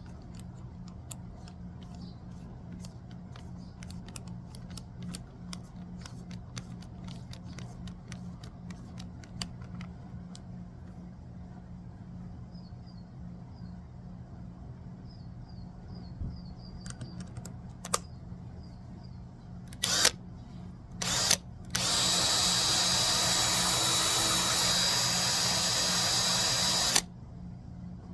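Power drill fitted with a socket through a socket-to-drill adapter. Scattered clicks of handling come first, then the drill is triggered in two short bursts and run steadily for about five seconds before stopping abruptly.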